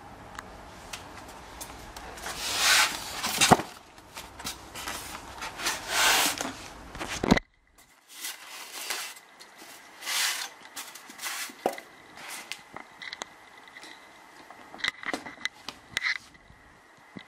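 Handling noise as a subwoofer is unpacked: the cardboard box and packaging are scraped and rustled in bursts, with a few sharp knocks. The sound cuts out completely for a moment about halfway.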